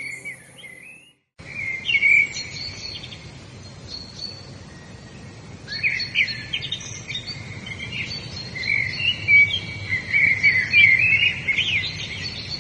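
Several songbirds chirping and trilling in short, busy phrases over a steady background hiss. Soft instrumental music cuts off with a brief silence about a second in.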